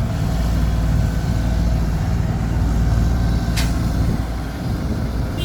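Heavy diesel engine running with a deep, steady rumble, with one short sharp sound about three and a half seconds in.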